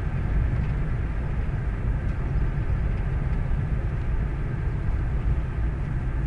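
Vehicle engine running steadily while moving, a low, even rumble.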